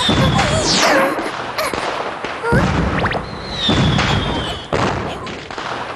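Cartoon soundtrack: deep booming thuds recurring every second or so under a busy layer of shimmering, sweeping magic sound effects.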